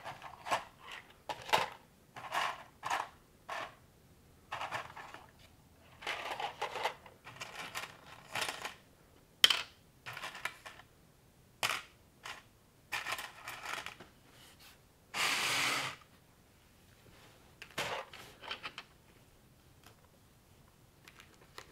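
Plastic LEGO-style Technic bricks being sorted and snapped together: an irregular string of small plastic clicks and short rattles of loose pieces, with one longer rustle about two-thirds of the way through. The handling thins out to a few faint touches near the end.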